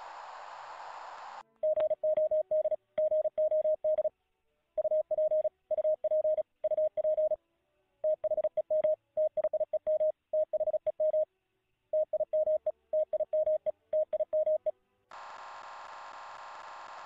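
Morse code (CW) from the QVE3A code-practice beacon received in the CQ100 VoIP ham radio program: a single steady mid-pitched tone keyed on and off in dots and dashes, in groups with short gaps. It starts about a second and a half in, after a stretch of receiver hiss, and gives way to hiss again near the end as the dial is tuned off the signal.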